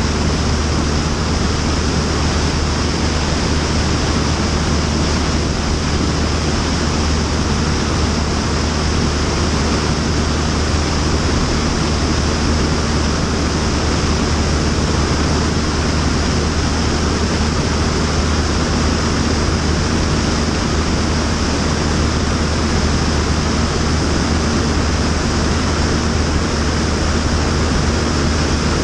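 Steady wind rush over a camera mounted outside under the wing of a Cessna 172 Skyhawk in flight, with the plane's engine and propeller droning steadily underneath.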